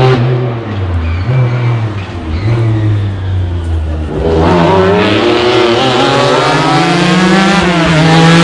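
Rally car engine: the revs fall and blip unevenly for the first few seconds, then the engine is opened up about four seconds in and holds high, loud revs.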